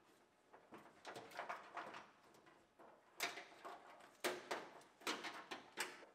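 Scattered clicks and light knocks of a wiring harness and its plastic clips being pulled loose and fished out of a bare GMC Yukon door shell. The sharpest clicks come about three seconds in, just past four, and near the end.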